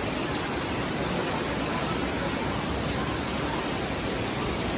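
Heavy tropical-storm rain pouring down onto roofs and paving, a dense, steady hiss.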